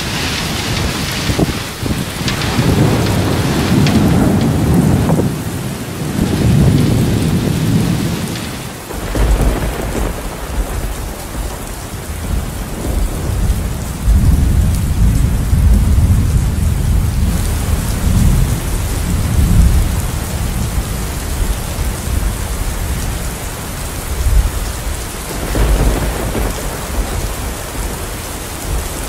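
Heavy rain falling steadily, with long low rolls of thunder swelling and fading several times.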